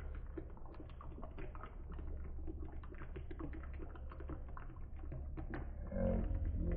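Cocktail being poured from a glass shaker into a martini glass: irregular small drips and clicks over a steady low hum. Near the end a louder, low pitched, wavering sound comes in.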